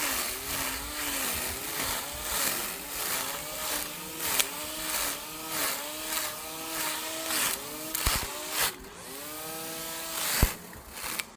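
Small lawn mower's motor running and cutting, its pitch dipping and picking back up over and over as the blade takes load. A sharp click comes near the end.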